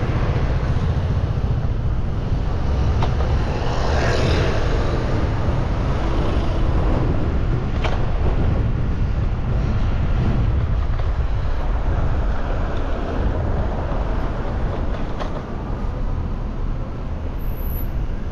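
City street traffic with a heavy, steady wind rumble on the microphone. There is a brief rushing swell about four seconds in and a few sharp clicks.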